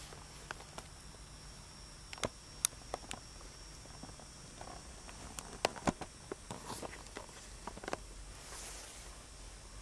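Faint, irregular clicks and taps with a couple of brief rustles, made by someone moving about with a handheld camcorder, over a low steady hum.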